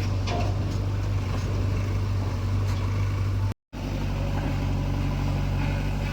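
Diesel engines of a backhoe loader and a tractor running steadily with a deep hum. The sound cuts out for a moment just past halfway and comes back with a higher engine note.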